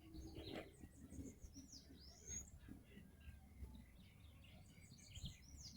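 Faint birds calling: scattered short chirps and whistled glides over near silence.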